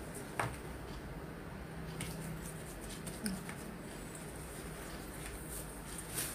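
A wire whisk beating thick coconut macaroon batter in a bowl: soft wet squishing with scattered light clicks as the whisk knocks the bowl.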